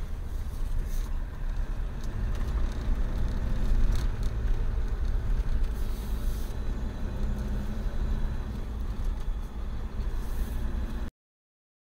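Steady low rumble of engine and road noise inside a moving camper van's cab. It cuts off abruptly to silence near the end.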